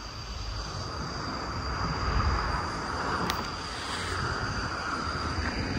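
A motor vehicle passing at a distance: its engine and road noise swell to a peak midway and then fade.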